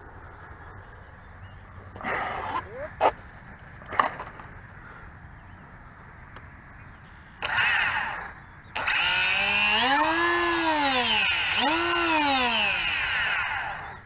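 Electric motor and propeller of a Turnigy EF Extra RC plane throttled up and back down twice while the plane sits on the ground, its whine rising and falling in pitch each time. A short rush of noise comes just before, and a few light clicks earlier on.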